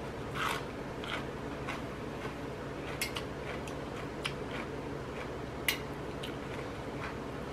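Mouth sounds of chewing a crisp green leaf, then metal chopsticks clicking a few times against a plate while picking up noodles, over a low steady hum.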